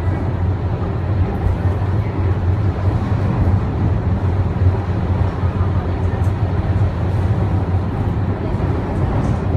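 Steady low rumble of a Wuppertal Schwebebahn Generation 15 suspension railway car running along its overhead track.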